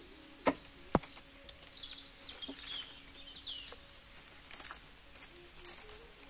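Stiff green leaf strips rustling and crackling as they are bent and bunched by hand around a bottle, with two sharp snaps about half a second apart near the start. Birds chirp now and then in the background.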